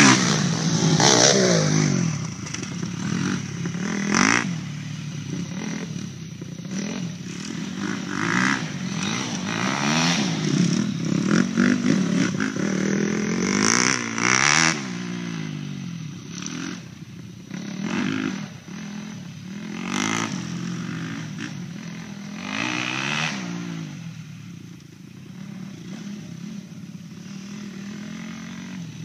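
Dirt bike engines, one a Honda CRF250R four-stroke single, revving up and down through the gears. Loudest in the first seconds as one bike passes close, then more distant as two bikes ride around the field.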